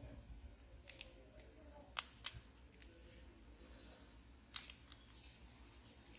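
A handful of small sharp clicks and taps, the loudest a pair about two seconds in, as a smartphone's internal parts and flex cable connectors are handled during reassembly.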